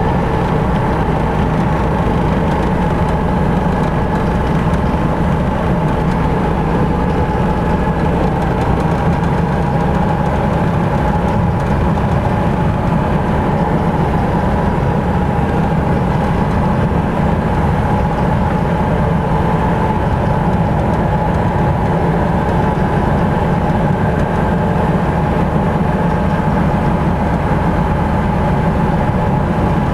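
Off-road vehicle engine running loud and steady at constant revs as the vehicle drives through a flooded, muddy track.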